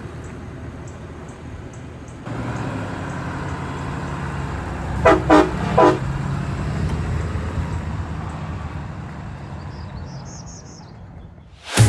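Diesel pickup pulling away, its 6.7 L Cummins engine running louder from about two seconds in. About five seconds in, its Hornblasters train horns give three short blasts, the loudest sound here. The engine then fades as the truck drives off.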